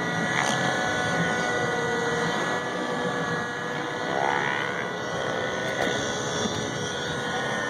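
Steady engine noise of a smoke-trailing aircraft passing overhead, a continuous hiss-like drone with a few faint tones and pitch glides over it.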